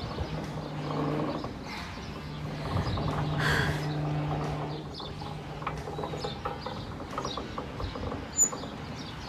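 Playground merry-go-round spinning: a steady low drone from about half a second in, fading out around six seconds, over wind rushing on the microphone.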